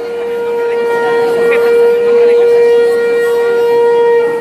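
A shofar blown in one long, steady note that cuts off near the end.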